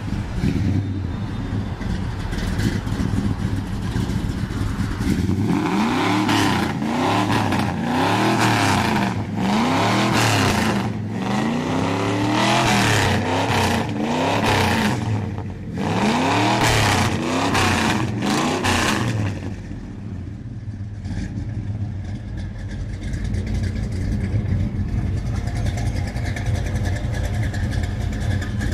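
Old custom Ford pickup truck's engine running loudly at idle, then revved in a string of quick blips that climb and fall back, about a dozen in a row, before it settles back to a steady idle for the last several seconds.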